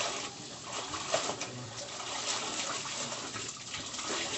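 Wet clothes being scrubbed and wrung out by hand in a basin, with water sloshing and dripping in irregular splashes.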